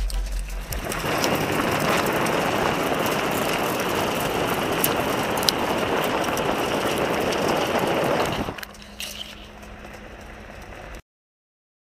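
Loud road noise of a vehicle's tyre rolling over a gravel road, mixed with wind rush, heard from a camera mounted low beside the front wheel. About eight and a half seconds in it drops to a quieter, steady drone of the vehicle driving, then cuts out abruptly near the end.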